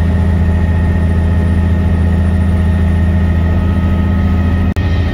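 Bell 505 helicopter running steadily: a loud, even drone of rotors and turbine with a thin steady whine above it. It breaks off for an instant near the end and resumes.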